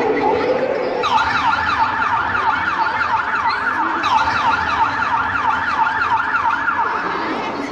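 Ambulance-style siren in a fast yelp, its pitch sweeping up and down several times a second. It starts about a second in and stops near the end.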